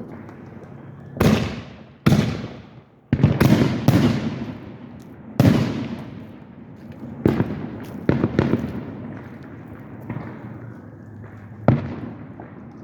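Aerial fireworks shells bursting overhead: about eight loud bangs in irregular succession, the densest cluster coming around three to four seconds in. Each bang is followed by a rumbling tail that fades over a second or so.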